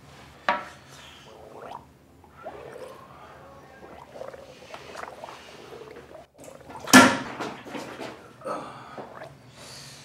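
Comic bathroom noises from a man on a toilet: voice-like straining sounds and wet, gargling flatulence noises, with the loudest burst about seven seconds in.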